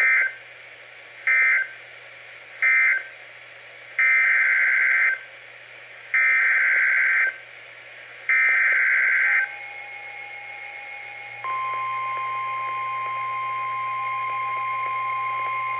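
NOAA Weather Radio EAS/SAME digital data bursts: three short chirps about a second apart, the end-of-message code. Then three longer bursts, the header for the next warning. About eleven seconds in, the steady 1050 Hz warning alarm tone begins, with a fainter steady tone from the radios in the seconds before it.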